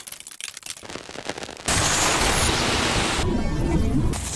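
Granular-synthesis sound-design textures, auditioned one after another with abrupt switches. It starts with a sparse crackle of scattered clicks. Near the two-second mark it jumps to a dense crackling hiss, and a little after three seconds to a darker texture with warbling pitched fragments.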